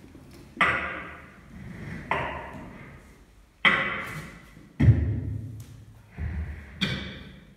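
Beatboxers making slow, sparse percussive mouth sounds: sharp snare-like hits about every second and a half, with a deep kick-like thud about five seconds in, each hit dying away with an echo.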